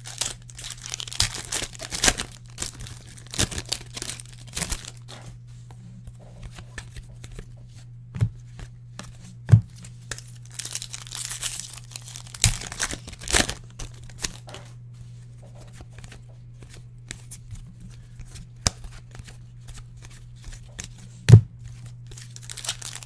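Trading-card packs being torn open and their foil wrappers crinkled as the cards are pulled out and handled, with scattered sharp taps of cards and packs on the table, the loudest near the end. A steady low hum runs underneath.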